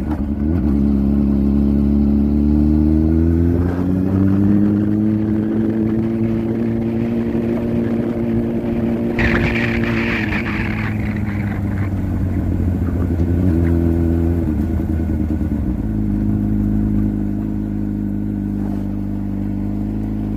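Motorcycle engine running while being ridden along a street: its note rises in the first few seconds, holds steady, then drops about halfway and shifts again a few seconds later. A brief hiss comes about halfway.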